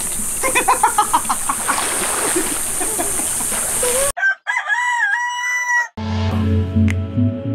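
Pool water splashing with excited voices, then a sudden cut to a single rooster crow of about two seconds, clean against a silent background like an inserted sound effect. Music starts near the end.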